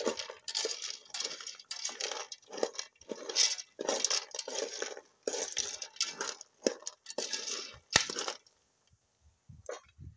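Hard palm kernels rattling and scraping against a metal pot as a hand stirs them, in quick irregular strokes. They stop about eight seconds in, just after one sharp click.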